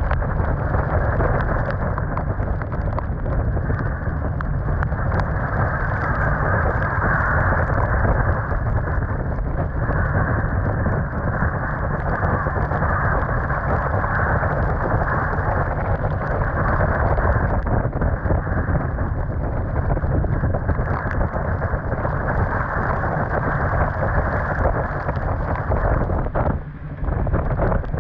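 Storm wind and driving rain on a sailboat: a loud, steady rushing noise with heavy wind buffeting on the microphone. It dips briefly near the end.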